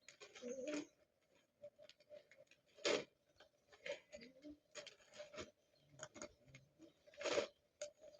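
Faint, scattered clicks and rustles of handling in a small room, with two louder brushing scuffs about three seconds in and again near the end.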